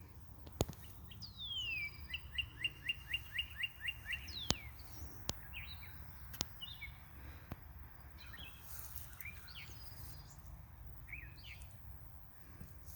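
Morning birdsong: one bird gives a falling whistled note and then a fast run of about nine repeated notes. Short chirps from birds follow. A few sharp clicks sound over a steady low rumble.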